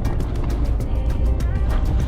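Background music with a steady, fast beat over a heavy bass line.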